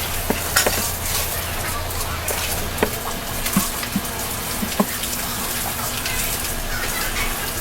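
Running water, as from a tap or hose, splashing steadily, with scattered small knocks and a few short faint voice-like sounds over it.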